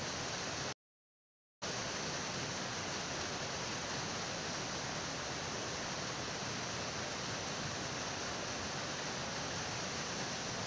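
Steady rushing of a mountain stream, even and unbroken, cutting out completely for under a second about a second in.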